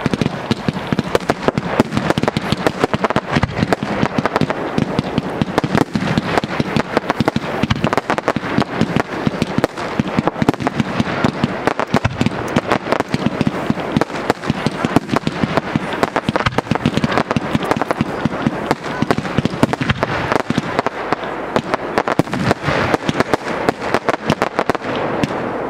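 Firework battery (cake) firing a long, fast volley of stars, many sharp launch pops a second in quick succession.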